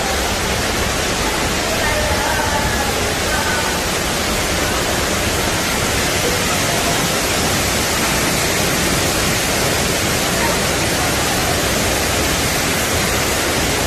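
Steady rushing of Fukuroda Falls, a large multi-tiered waterfall: a dense, even wash of falling-water noise with no pauses.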